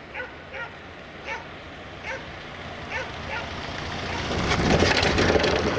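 A dog barking, one short bark roughly every three-quarters of a second. A road vehicle passes close by, rising to its loudest about five seconds in and drowning out the barks.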